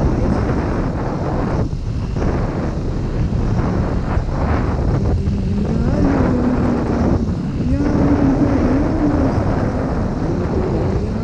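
Wind buffeting the microphone on a moving motorcycle over the running note of a Suzuki Gixxer 155's single-cylinder engine. From about halfway through, the engine note rises and falls with the throttle.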